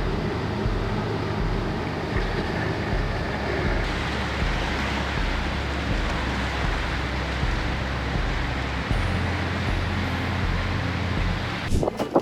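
Ice pieces stacked along the Lake Superior shore shifting and grinding together, giving a steady rushing, hissing noise. A low, regular bass pulse runs underneath. The rushing gives way to a quick run of sharp clicks just before the end.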